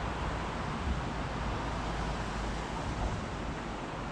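Steady rush of a trout stream's flowing water, with low wind buffeting on the microphone for the first three seconds or so.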